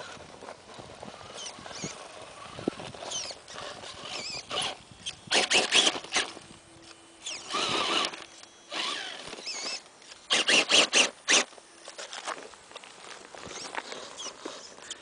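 An electric RC rock crawler, an Axial AX10 with shaft drive, working over rock. Its motor and gears whine in short, wavering bursts of throttle, and there is a rapid rough scraping as the tyres and chassis scrabble on the stone, loudest about five and again about ten seconds in.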